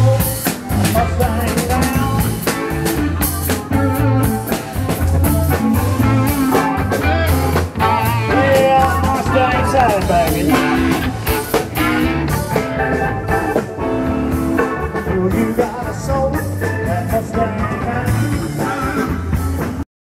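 Live band playing a bluesy rock-and-roll number, with upright bass, guitars, keyboard and drums; the bass line and drum beat keep a steady rhythm. The music cuts off abruptly near the end.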